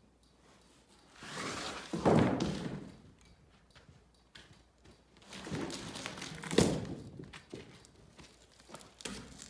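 Heavy wooden thunks from timber being handled on a sawmill: a scraping rumble rising to a thud about two seconds in, then more scraping with a sharp knock near the seventh second.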